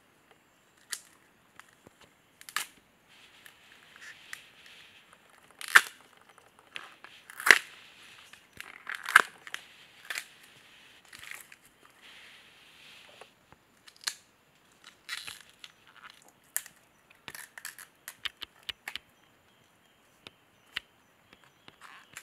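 Tough outer sheaths being torn and peeled by hand from a freshly cut bamboo shoot: irregular sharp cracking and tearing snaps, the three loudest between about six and nine seconds in.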